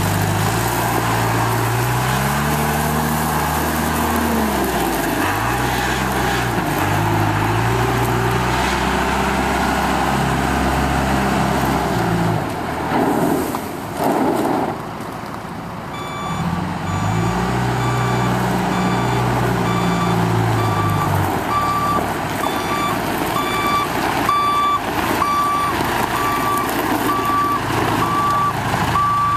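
John Deere 310G backhoe's four-cylinder 4045 diesel running, its engine speed rising and falling several times as it works. From about halfway its reversing alarm beeps steadily, about once a second.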